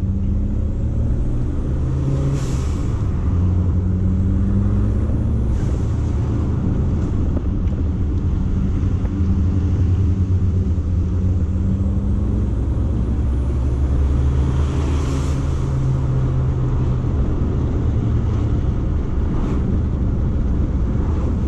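Toyota MR2's turbocharged 3S-GTE engine running under way, heard from inside the cabin with road noise, its pitch rising and falling. Two short hissing bursts come about two and a half seconds in and again around fifteen seconds.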